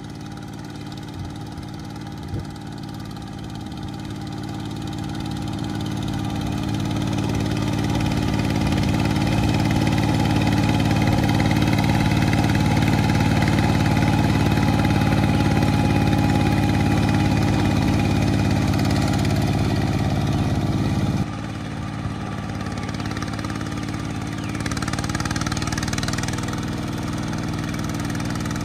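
Kubota two-wheel walking tractor's single-cylinder diesel engine running steadily under load while plowing a flooded rice paddy. It grows louder over the first several seconds, drops suddenly about three quarters of the way through, and keeps running more quietly.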